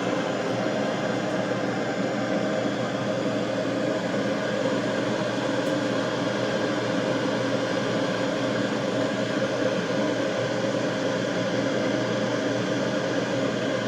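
Laser engraver running, a steady machine whir and hum with no change.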